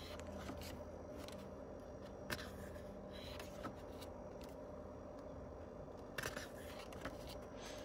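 Faint paper handling as the pages of a glossy photo book are turned: a few soft rustles and taps over a low steady hum.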